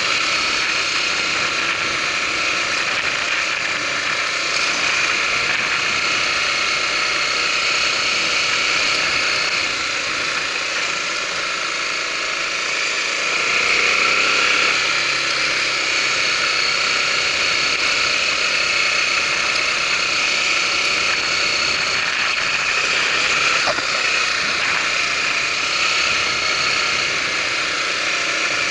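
Honda Tornado 250's single-cylinder four-stroke engine running steadily while the motorcycle is ridden, with a slight rise in level about halfway through.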